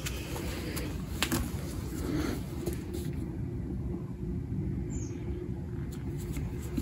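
A low steady rumble with a few faint clicks.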